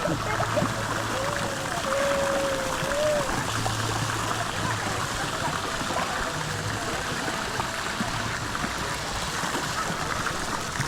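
Steady rush of running water from a river's small waterfalls, with a brief wavering voice-like tone about two seconds in.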